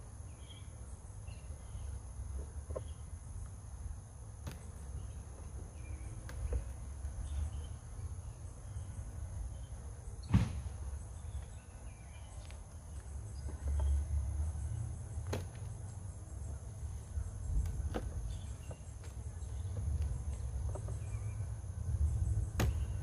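Steady high chirring of insects, with a low rumble underneath. Scattered sharp clicks and knocks come from wooden hive frames being handled, the loudest about ten seconds in.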